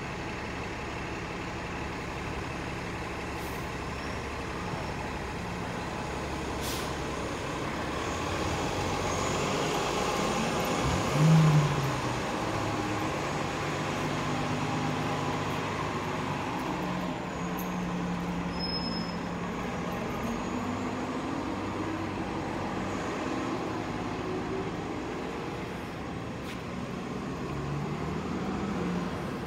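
Battery-electric city bus running while standing, a steady electric hum and whine with tones that shift slowly. A brief louder rising hum comes about eleven seconds in.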